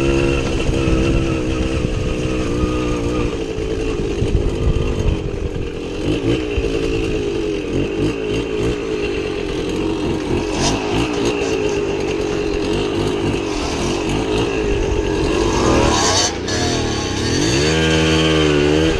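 Small two-stroke motorcycle engine running under riding load, its revs wavering as the throttle works, then dropping and climbing again near the end with a brief break in between, as at a gear change.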